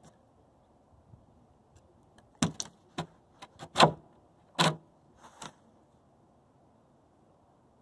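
A dog sniffing and pawing at wooden deck boards. Short scrapes and snuffles come in a quick cluster from about two and a half to five and a half seconds in.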